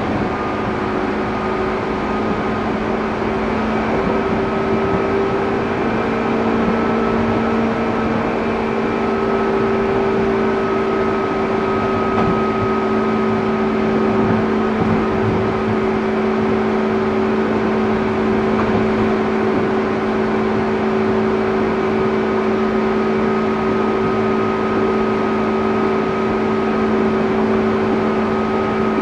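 JR 205 series electric train running, heard from inside the car: a steady motor and gear hum over rolling wheel noise, its pitch shifting slightly about eight seconds in.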